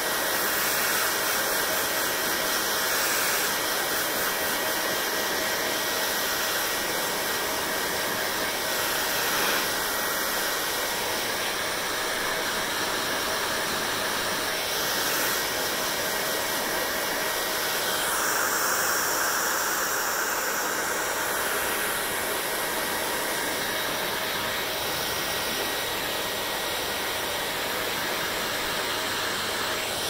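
Hand-held hair dryer blowing steadily on wet hair: a continuous rush of air with a faint steady whine underneath. The sound shifts slightly in tone from moment to moment as the dryer is moved.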